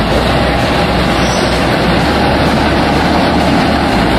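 British Rail Class 50 diesel locomotive passing close by hauling a train, its engine running with steady loud noise throughout.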